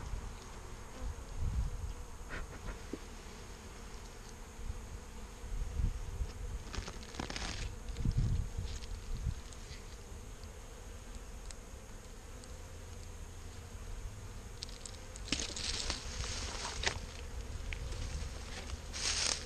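Honeybee colony buzzing steadily from an opened hive box, a serious roar that the beekeeper guesses means the colony is queenless. A few knocks and rustles of the hive cover being pried off, lifted and set down.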